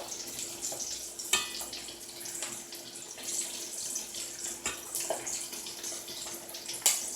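Flour-dredged chicken wings sizzling in hot vegetable oil in a wok: a steady frying hiss with scattered crackles and pops.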